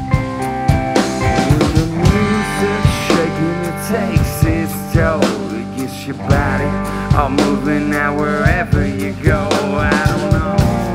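Live rock band playing an instrumental passage: electric guitar, bass guitar and drum kit, with a wavering, bending lead melody over the top.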